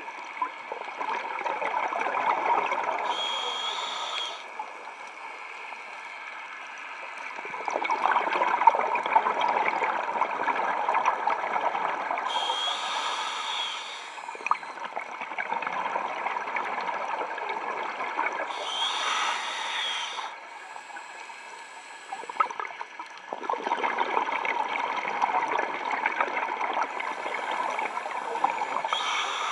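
Scuba diver breathing through a regulator underwater. There are four short hissing inhales with a faint whistle, each followed by several seconds of bubbling exhaust from the regulator.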